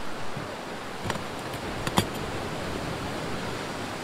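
Ocean surf breaking and washing on the beach, a steady rushing hiss. A couple of light clicks come about a second in, and one sharp knock about two seconds in.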